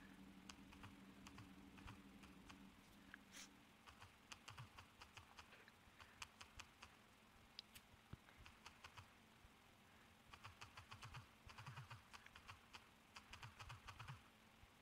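Faint runs of quick key clicks from typing on a phone's touchscreen keyboard, in short bursts with pauses between them.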